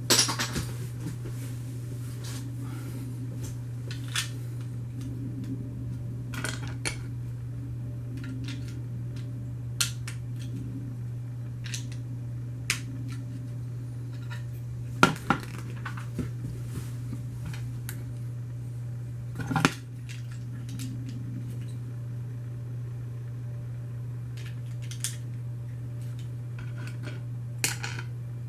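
Lego plastic pieces clicking and clattering as they are handled and pressed together: about a dozen sharp clicks at irregular intervals, the loudest near the start, around the middle and about two-thirds through. A steady low hum runs underneath.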